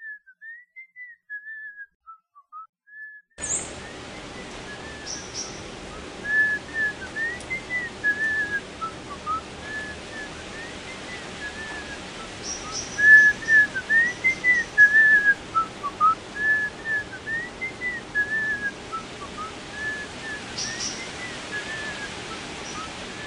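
A woman whistling a slow melody, the notes gliding up and down. About three seconds in, a steady sound of wind blowing through trees comes in beneath the whistling and carries on.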